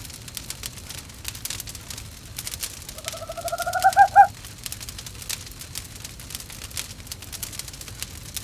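Wood fire crackling in a fireplace, with one owl call about three seconds in: a quickening run of notes rising slightly in pitch and ending in two louder notes.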